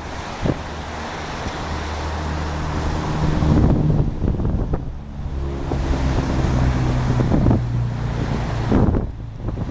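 Wind buffeting the microphone in repeated gusts, over the low steady hum of an Airbus A321neo's Pratt & Whitney PW1100G geared turbofan engines on landing approach.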